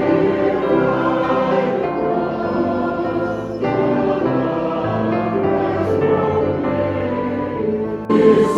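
Choir singing, with long held chords that change abruptly about a third of the way in and again near the end.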